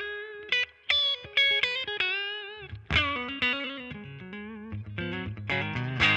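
Electric guitar played through a Marshall DSL15C 15-watt all-valve combo amp with its reverb set to about 7. First comes a phrase of sustained single notes, some of them bent and wavering, then struck chords from about halfway and again near the end.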